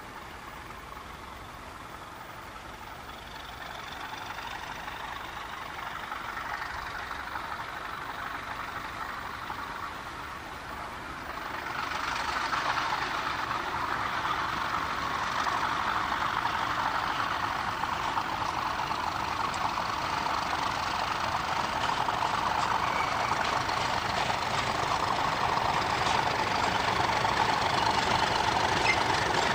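British Rail Class 37 diesel-electric locomotive's engine running, growing steadily louder as it draws near, with a marked rise about 12 seconds in.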